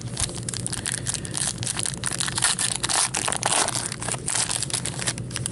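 Foil hockey card pack wrapper being torn open and crinkled in the hands: a dense, continuous run of crackles.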